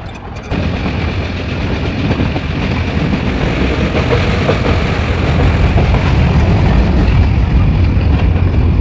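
Nilgiri mountain toy train running on the track: a steady low rumble and rattle that starts abruptly about half a second in and grows slowly louder.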